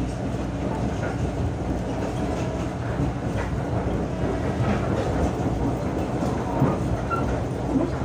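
Passenger train rolling along the track, heard from the coach window: a steady rumble of wheels on the rails with irregular clicks and clatter.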